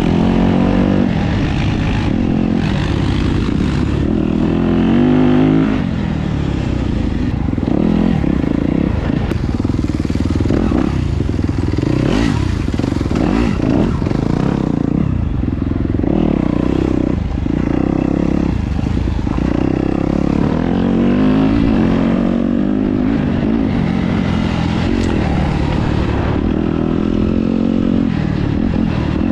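2017 Yamaha YZ250FX dirt bike's 250 cc four-stroke single-cylinder engine running under way on a dirt trail, its pitch rising and falling again and again with the throttle, with some clatter over the rough ground.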